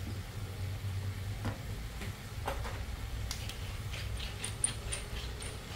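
Wooden pepper mill being twisted over the pan, grinding pepper in a run of quick, even clicks, about three or four a second, starting about three seconds in. A few scattered knocks come before it, over a low steady hum.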